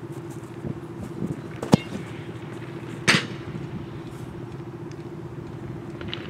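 Steady drone of a motor vehicle's engine running. A single sharp knock cuts through it near two seconds in, and a brief hiss about a second later.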